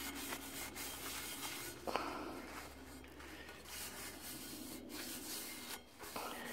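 Paper towel rubbing around the inside of a Bromwell stamped carbon steel frying pan, a dry scuffing wipe, with one light knock about two seconds in.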